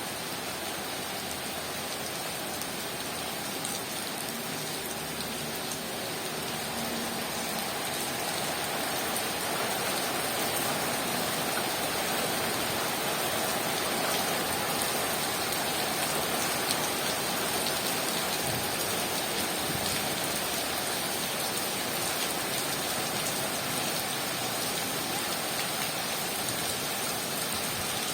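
Heavy rain falling steadily and densely on surfaces, growing a little louder after the first several seconds.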